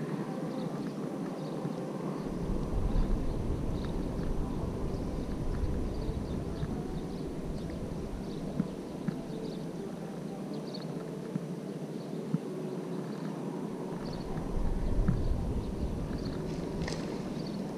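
Outdoor ambience with wind buffeting the microphone in two gusts of low rumble, the first from about two seconds in and the second near the end. Faint short high chirps and a couple of sharp ticks are scattered through it.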